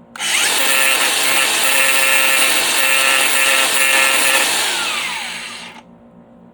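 Power grinder switched on and running for about five seconds, grinding down a plastic mount piece, then switched off and winding down with a falling whine.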